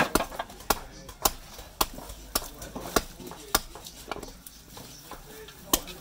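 Small hatchet chopping into a wooden block held against a tree-stump chopping block while rough-shaping a carving: sharp chops about twice a second, a pause of about two seconds, then another chop near the end.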